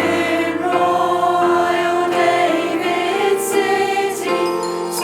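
Women's choir singing in harmony, holding long notes that change every second or so.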